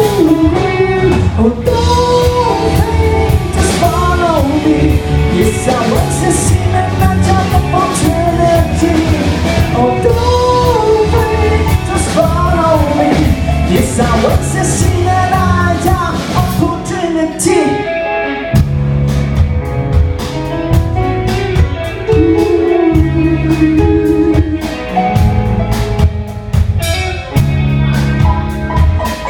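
A live band playing a song: a singer over electric guitar, bass and a drum kit keeping a steady beat.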